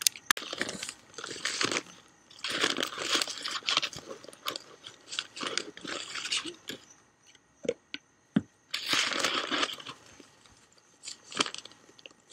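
Crinkling and rustling of a bag of sanded grout as a hand and scoop dig into the dry powder, in irregular bursts with a few sharp knocks.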